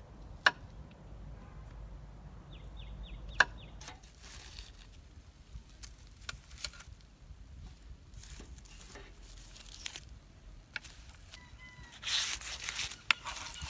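A knife chops twice on a wooden cutting board, then charred, dry banana-leaf packets of grilled fermented fish crinkle and crackle as they are lifted off a wire grill and handled with a knife, loudest near the end.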